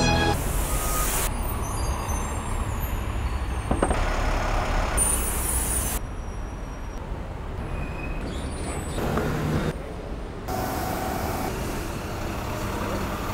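Heavy city street traffic: buses, vans and cars running close by with a steady low rumble, heard from a bicycle riding among them, with a sharp click about four seconds in.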